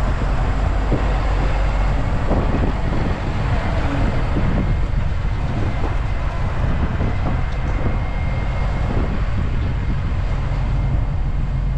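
Tractor engine running as it pulls a slurry tanker out of a shed and away across a yard: a steady, heavy low rumble that holds at an even level.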